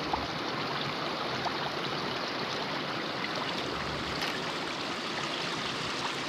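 Steady rush of flowing creek water, with a few faint clicks.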